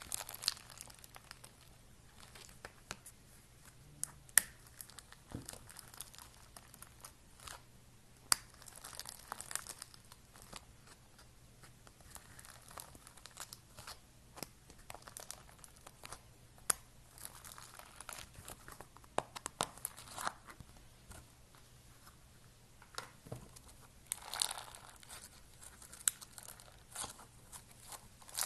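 Slime being squished and stretched by hand, giving quiet crinkly crackling with scattered sharp pops and clicks.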